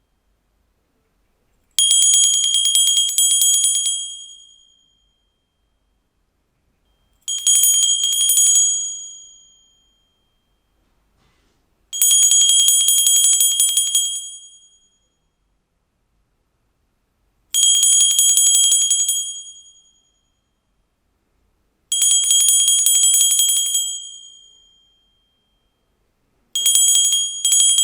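Hand bell shaken in six bursts of about two seconds each, its clapper striking many times a second with a bright, high-pitched ring. Each burst fades out, and the last one breaks off briefly before it resumes.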